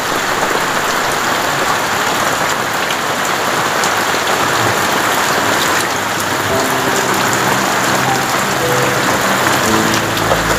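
Heavy rain pouring steadily in a storm, a dense continuous hiss with scattered drop ticks.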